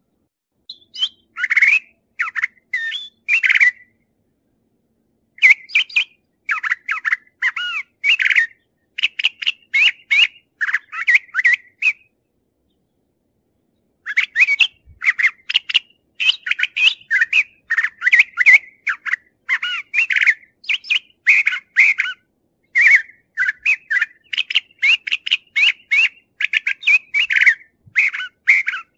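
Brown thrasher singing: a long run of quick, varied phrases that breaks off twice, for a second or two each time.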